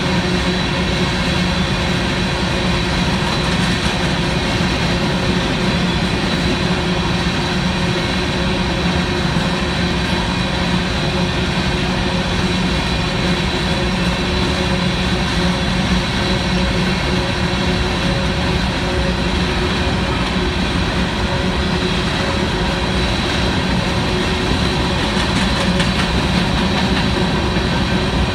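Union Pacific freight train's hopper cars rolling past a road grade crossing: a steady, unbroken rumble of steel wheels on rail.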